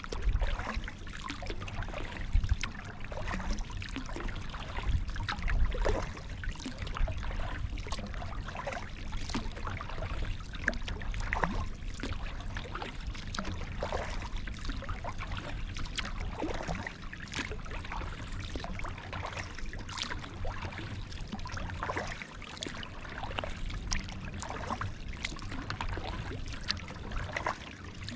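Kayak paddling: water splashing and trickling off the paddle blades, with many small drips and splashes, over a steady low rumble.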